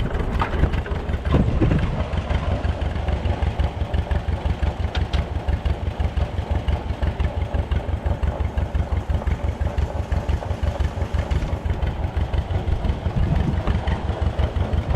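Old farm tractor engine idling steadily, with an even beat of several firing pulses a second.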